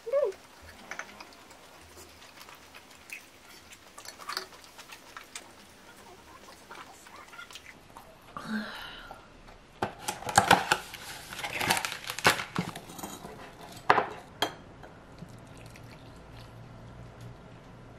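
Eating at the table: soft chewing and small clicks, then a busy spell of cutlery and dishes clinking and knocking a little past the middle.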